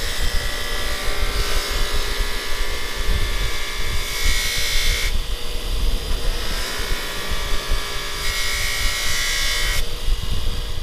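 Electric grinder running with a steady motor whine, its wheel scrubbing against a metal part to strip it down. The scrubbing grows louder and harsher in spells, near the start, about four seconds in and from about eight to ten seconds.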